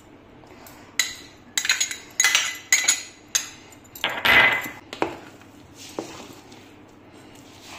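Steel spoon clinking and scraping against a steel pot and a glass bowl as chopped coriander is scraped in and stirred into a thick ground dal mixture: a string of clinks about every half second, with one longer, louder scrape near the middle.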